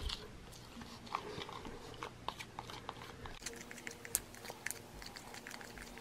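Thick body-wash soap being stirred with a mixing tool in a plastic bowl as it thickens into no-glue slime: faint, irregular small clicks and squishes, several a second.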